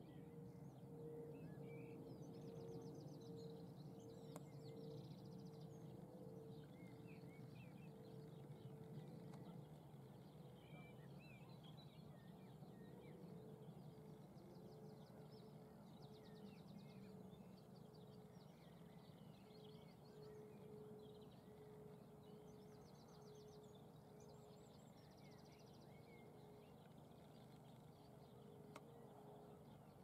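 Faint countryside ambience: several small birds singing in the background, with scattered chirps and a few quick trills, over a low steady rumble and a faint pulsing hum.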